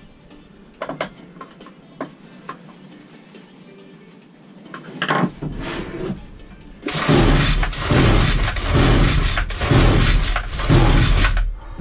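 A few light clicks and knocks, then the recoil starter of a Titan multi-tool strimmer's small two-stroke engine pulled hard several times in quick succession, about one pull a second. The engine turns over without catching; the owner puts the failure to start down to the ignition coil.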